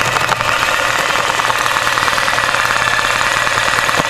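LZ271 industrial zigzag embroidery sewing machine running steadily at speed, its needle stitching in a fast, even rhythm.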